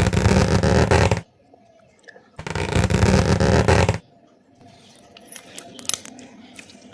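Slime being squeezed and pressed in two long crackling, squelching stretches, the second a little longer, followed by a few faint small pops and clicks.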